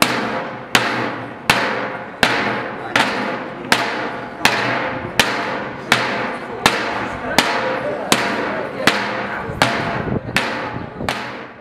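Wooden sticks beating on empty steel barrels in a steady, slow rhythm, about one hard strike every three-quarters of a second. Each hit rings out and fades before the next.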